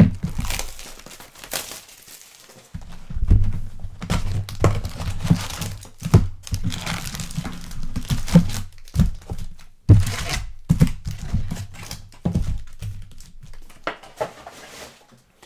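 A hobby box of trading cards being opened by hand: wrapper and packs crinkling and tearing, with repeated dull thunks as the box and packs are handled on the table.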